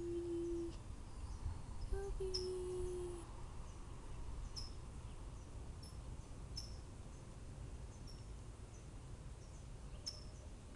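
Small birds chirping, short high chirps about once a second, over steady outdoor background noise. In the first three seconds two held low tones, each about a second long, stand above it.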